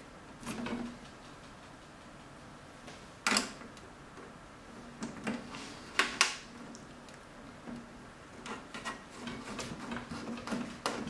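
Knocks and clicks from handling a metal PC case side panel while fastening its screws: a sharp knock about three seconds in, two more close together around six seconds, and a run of light rapid clicks near the end.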